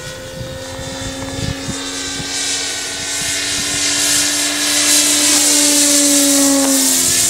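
Electric motor and propeller of a 1/4-scale foam P-40 Warhawk radio-controlled model flying by: a steady whine that grows louder as the plane comes closer, then drops slightly in pitch as it passes near the end.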